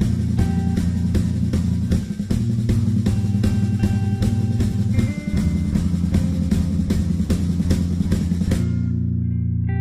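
Band recording with a full drum kit, bass and guitar playing a steady beat. Near the end the drums stop and a held guitar and bass chord rings on.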